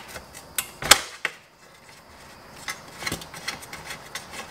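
Metal hand tools clinking as short 8mm bolts under a motorcycle skid plate are undone with a socket and a small wrench: a few sharp clicks with a loud clink about a second in, a short pause, then a run of lighter clicks.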